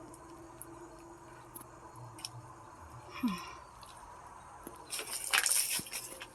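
Faint scattered ticks and a short falling squeak, then a run of loud crunching noises near the end.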